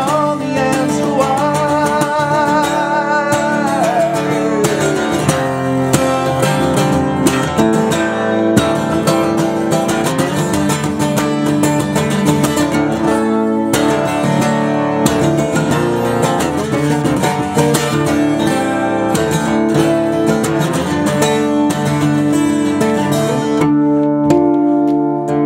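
Twelve-string acoustic guitar played fast and hard in an instrumental passage: dense, rapid strokes over ringing chords.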